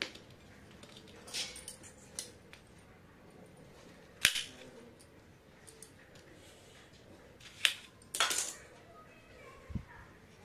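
Scattered sharp clinks and taps of a kitchen knife and cucumber against a steel plate as a cucumber's ends are sliced off, about half a dozen in all, with a dull thump near the end.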